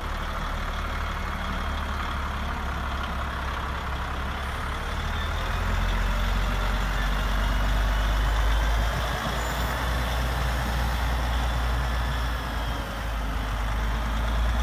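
Radio-controlled Tamiya MAN tractor truck driving with a lowboy trailer load, giving a steady low truck-engine sound that swells for a few seconds midway.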